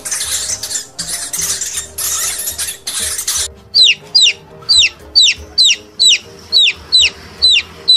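Short scratchy noise bursts for the first few seconds, then domestic chicks peeping: about ten loud cheeps, each falling sharply in pitch, roughly two a second, over background music.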